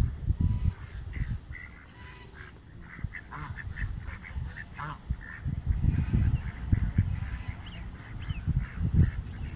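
Ducks calling with short, repeated quacks over a pond, mixed with a few quick high chirps. Gusty low rumbling, likely wind on the microphone, is the loudest part.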